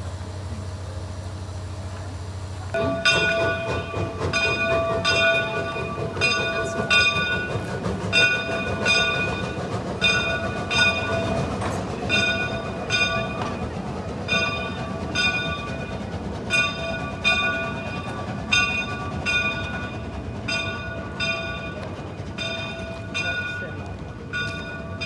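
The bell of a Shay geared steam locomotive ringing steadily, about three strokes every two seconds, starting about three seconds in as the locomotive pulls out. Beneath it is the rumble of the locomotive working, with a low steady hum before the bell begins.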